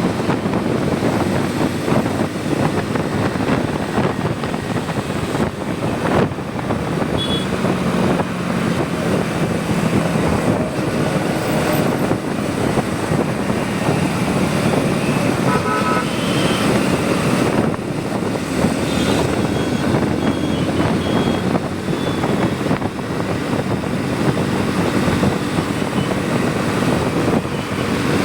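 Motorcycle ride: steady wind rush over the engine running, with a few short horn toots from vehicles around it, about a third of the way in and again past the middle.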